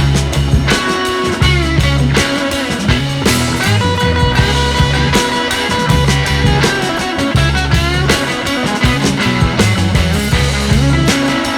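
Background music: rock-style backing track with guitar and a steady bass beat.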